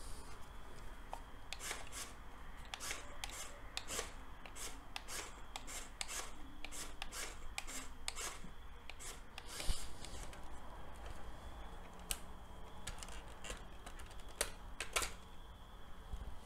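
Light, irregular clicks and rattles of plastic LEGO Technic parts as the truck model is handled, with its cab tilted forward.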